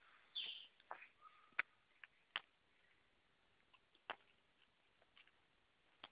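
A puli puppy's teeth gnawing a plastic ring toy: about six faint, sharp clicks and taps at irregular intervals over a near-silent background.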